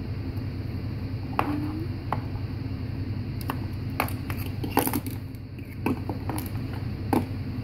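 Hard plastic toy horses and figures clicking and tapping against each other as they are handled, a scattered series of short sharp clicks, the loudest about five and seven seconds in. A steady low hum runs underneath.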